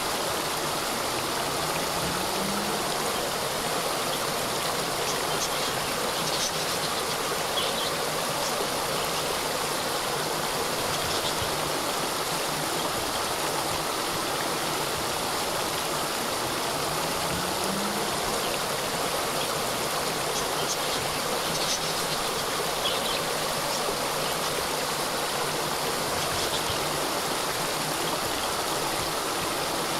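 Small waterfall: water cascading and splashing in a steady, even rush.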